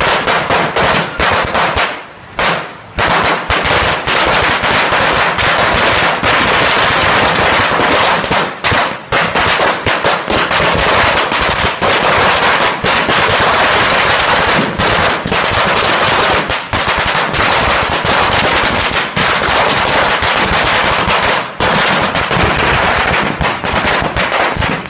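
A long string of firecrackers going off on the ground in a rapid, continuous run of sharp bangs. It pauses briefly a few times and stops abruptly at the very end.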